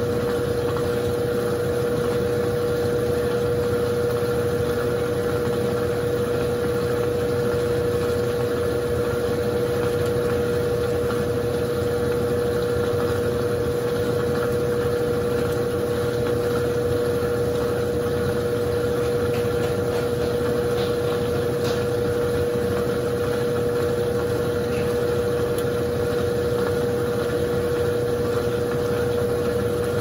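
Consul Super Cargo CWL10A top-loading washing machine on its final spin cycle: motor and basket spinning at a steady speed, a constant whir with a steady mid-pitched hum.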